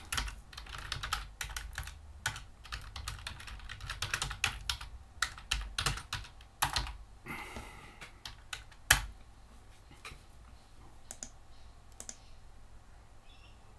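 Typing on a computer keyboard: quick runs of key clicks that thin out after about seven seconds, with one louder sharp click about nine seconds in.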